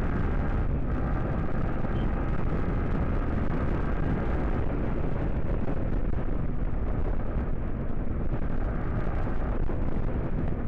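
Motorcycle running on the road while being ridden, under a steady, heavy rumble of wind buffeting the microphone.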